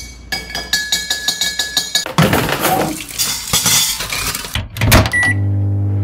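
A spoon clinks rapidly and evenly against a mug, about five strokes a second. A loud, noisy clatter follows. Near the end a microwave oven beeps once and starts its steady hum.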